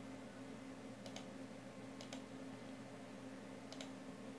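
A few faint computer clicks: a pair about a second in, another pair about two seconds in and one more near the end, over a steady low electrical hum.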